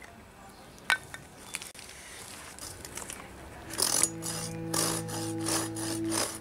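Folding pruning saw cutting a thin blank of hard, seasoned cherry, quick rasping strokes about three a second starting about four seconds in. A single sharp knock about a second in, as wood is set down on the stump.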